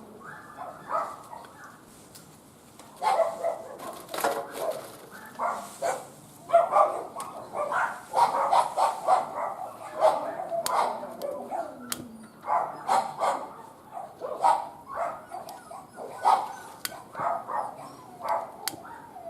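Short animal-like vocal calls repeating in quick clusters, mixed with a few sharp clicks.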